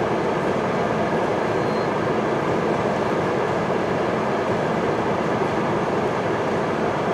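Freight train at a crossing: a steady noise of the train's cars and locomotive with no rhythmic clatter, and a faint brief squeal about two seconds in.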